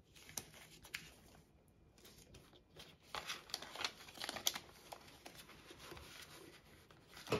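Clear plastic envelope in a small ring binder crinkling as a banknote is handled and slid into it, with scattered light clicks. The crackling is busiest in the middle.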